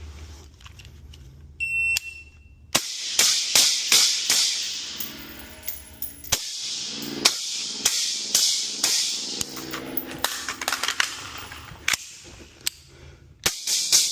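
An electronic shot-timer start beep lasting about a second, then a long string of airsoft gun shots fired in quick succession.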